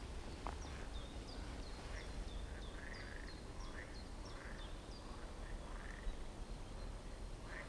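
Birdsong at a pond: a run of short, high, falling whistled notes repeated a few times a second for about four seconds, over softer, lower animal calls.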